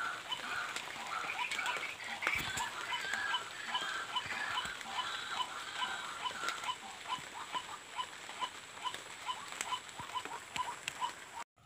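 An unseen small animal calling in a steady series of short, clear notes, about two to three a second, with a second, raspier call repeating alongside and a few light rustles in the vegetation.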